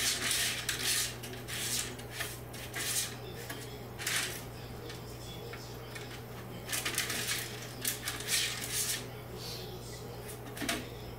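Cat scratching and digging in the litter of a plastic toilet-training tray set in a toilet bowl: irregular scratchy rustles in short bursts, several close together near the start and again about seven to nine seconds in, over a steady low hum.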